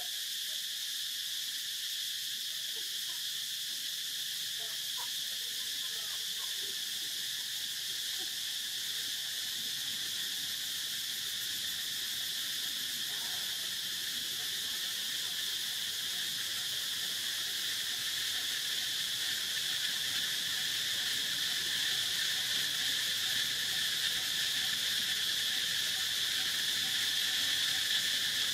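Steady, high-pitched chorus of forest insects, one unbroken shrill drone that grows slowly louder toward the end.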